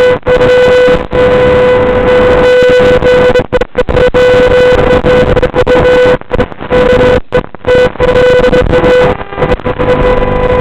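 Loud, steady electronic buzz, a single fixed tone with evenly spaced overtones over hiss, cut off briefly several times by dropouts. It is the static audio of an analog FPV video downlink as recorded by the goggles' DVR.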